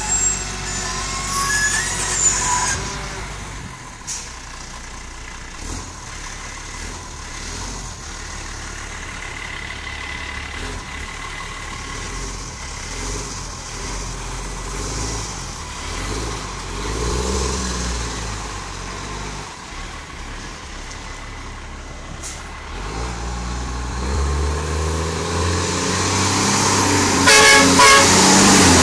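Iveco Acco garbage truck's diesel engine running as it drives by, with high squealing from its brakes in the first couple of seconds. The engine fades to a low hum, then grows steadily louder over the last few seconds as the truck comes up close, with a few sharp hisses or clunks near the end.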